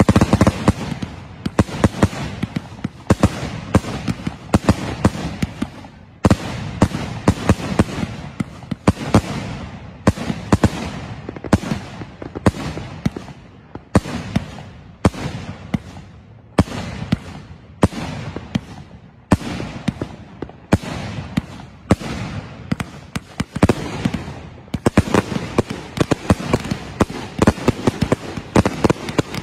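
Consumer aerial fireworks going off in a continuous grand-finale barrage: a dense run of sharp bangs and pops, several a second, with no break.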